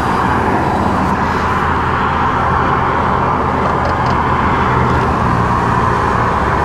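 Mercedes-Benz Actros lorry's diesel engine running steadily, heard from inside the cab, with a steady low hum and cars passing close by.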